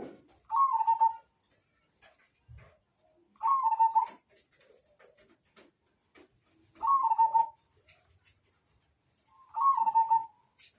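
Zebra dove (perkutut) cooing: four short phrases about three seconds apart, each opening on a brief higher note and settling onto a lower held note.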